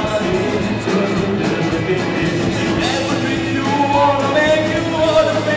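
Live rock band playing: a drum kit keeping a steady beat under electric guitars, with a male singer's voice coming in about halfway through.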